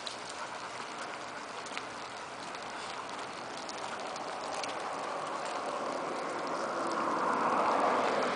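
A steady swishing hiss of movement along an asphalt path behind a trotting dog, with a few faint ticks in the first half; the hiss swells and is loudest near the end.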